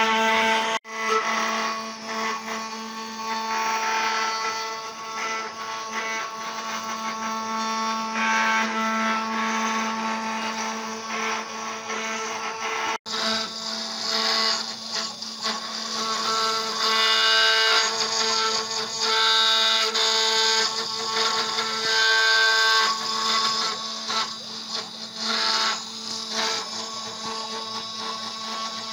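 CNC router spindle running with a steady whine while its bit carves into a wooden door panel, the cutting noise rising and falling as the bit moves. The sound drops out for an instant twice.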